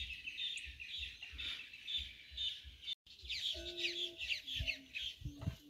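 Many small birds chirping and twittering without a break, with a few short, lower calls from chickens in the second half.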